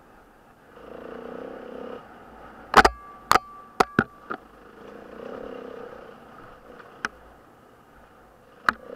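Off-road motorcycle engine heard from the bike itself, rising and falling in swells as the throttle is opened and closed along a rough dirt track. Sharp knocks and clacks from the bike jolting over the ground break in, a cluster of them about three to four seconds in, then single ones near seven seconds and near the end.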